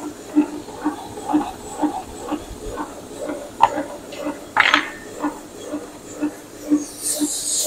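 Homemade 1:8 scale, 7¼-inch gauge live steam locomotive running on compressed air instead of steam, its cylinders exhausting in an even beat of about two chuffs a second. A sharp hiss of air breaks in a little past halfway, and a louder hiss of air builds near the end.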